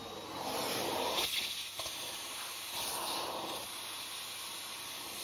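Vacuum cleaner nozzle pressed against an AirPod's speaker grille, air hissing through the mesh as it sucks out the cleaning liquid. The hiss swells and eases a few times as the nozzle is worked against the earbud.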